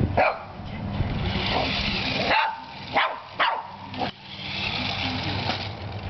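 Shih Tzu barking sharply about five times, in quick bursts, at a remote control toy truck. A steady whir from the truck's electric motor runs under the barks.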